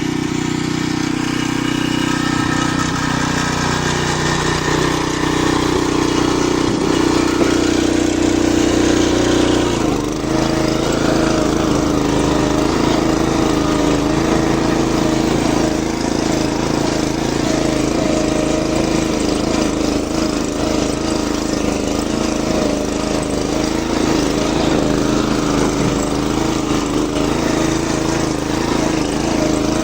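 Small engine of a motorised oil palm fruit-bunch cart running steadily; its note shifts a few seconds in and changes abruptly about ten seconds in, then holds.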